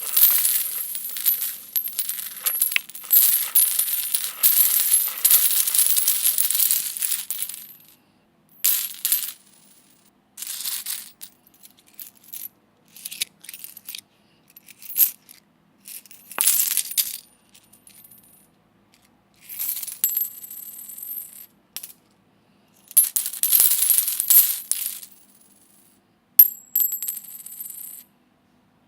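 Metal coins jingling and clinking: one continuous jingle for about the first seven seconds, then a string of short separate clinks and jingles with silences between them. Two of the later takes carry a high ringing tone.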